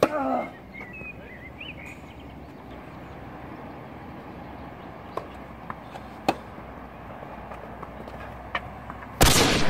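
Tennis rally: sharp hollow pops of racket strings hitting the ball and the ball bouncing, a few seconds apart, the first with a short falling cry from the hitter. Near the end a loud burst of noise, about half a second long, is the loudest thing heard.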